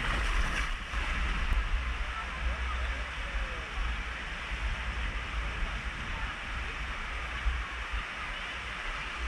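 Water rushing under an inflatable ride tube as it slides down a large water slide, a steady noisy wash that is loudest in the first second. A constant low rumble of wind on the microphone runs underneath.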